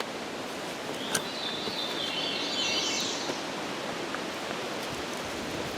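Wind blowing through the trees, a steady rustling hiss, with a bird's brief high chattering trill from about one and a half to three seconds in.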